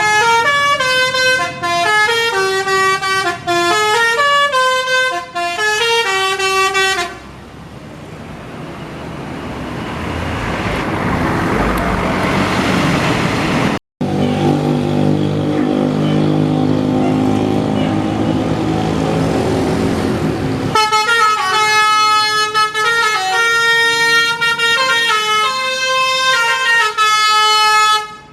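Multi-tone Basuri telolet bus horns playing a stepping melody of short notes for about the first seven seconds. A bus then drives by, its engine and road noise rising, followed by a brief dropout and a bus engine running. Near the end the horns play the melody again.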